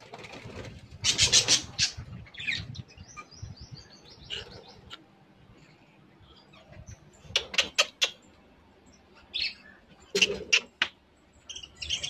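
A flock of budgerigars chirping in short high notes, with a few loud bursts of wing flutter and sharp clicks in between.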